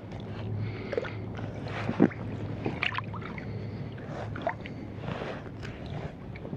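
Shallow seawater sloshing and splashing while a freshly landed sea trout is handled and unhooked, with a few small knocks and splashes scattered through it.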